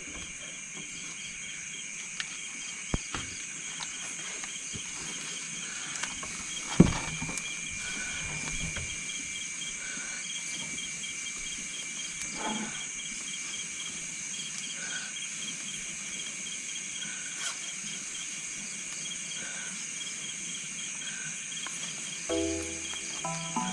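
Night chorus of crickets and other insects, a steady trilling at several high pitches with a regular pulse in one of them, broken by a few faint knocks and one sharp knock about seven seconds in. Music comes in near the end.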